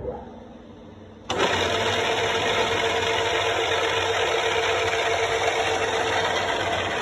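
Gambin 3CM milling machine running: after a quiet first second, a steady mechanical hum of motor and gearing comes in suddenly and holds, with a steady mid-pitched whine.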